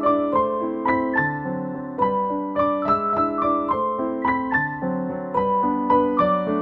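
Background piano music: a melody of separate struck notes over held chords, about two to three notes a second.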